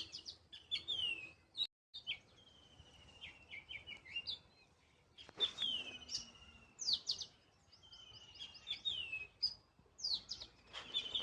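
Small birds chirping and twittering, a busy run of short, mostly falling high notes and quick trills that overlap at times. The sound cuts out completely for a moment just under two seconds in.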